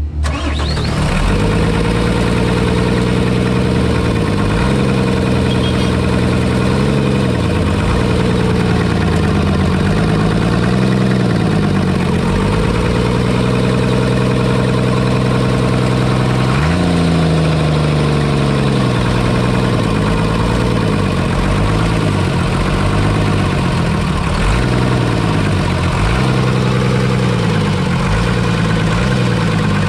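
Mitsubishi Fuso truck's diesel engine running at idle, its speed rising and falling every couple of seconds, with one sharper, quick rise in revs about 17 seconds in.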